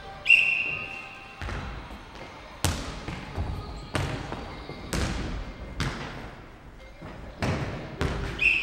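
Futnet ball bouncing on the wooden hall floor and being kicked: about eight sharp thuds that echo in the hall. A short referee's whistle blast sounds just after the start and again near the end.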